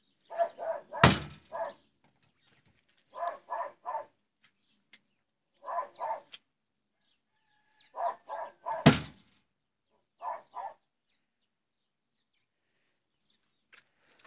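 Two sharp thumps in a wooden rabbit hutch, about a second in and near the nine-second mark. Between them an animal gives short calls in quick groups of three or four, five times over.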